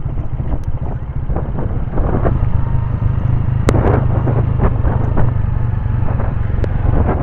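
Honda motorcycle engine running at low speed, its steady low note getting louder about two seconds in, with frequent knocks and rattles from riding over a rough dirt track.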